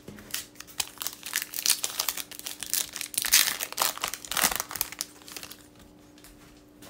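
Foil trading-card pack wrappers crinkling and crackling in the hands as the packs are opened. The rustling thins out about five seconds in.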